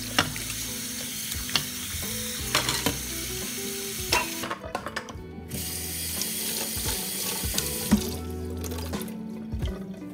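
Kitchen tap running into a stainless steel sink as dishes and a glass lid are rinsed, with sharp clinks of dishware. The water cuts off a little after four seconds in and comes back more than a second later, while a wet scrubber is squeezed and rinsed under it.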